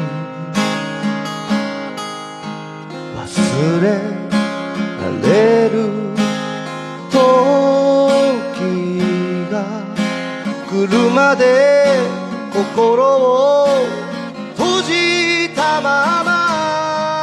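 A man singing with wavering vibrato while accompanying himself on a strummed acoustic guitar, holding a long note near the end.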